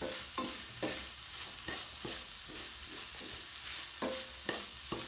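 Vegetable stir-fry sizzling in a pan while a utensil stirs it, knocking and scraping against the pan every half second or so.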